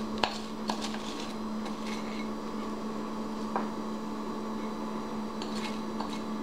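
A steady hum, with a few light clicks of a utensil against a glass baking dish as sticky chocolate Rice Krispies mixture is scooped in: two in the first second and one about halfway through.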